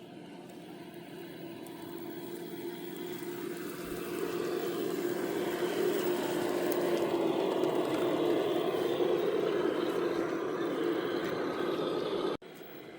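Electric drive motor and gears of a radio-controlled 3D-printed 6x6 truck whining steadily, growing louder over the first several seconds and cutting off abruptly near the end.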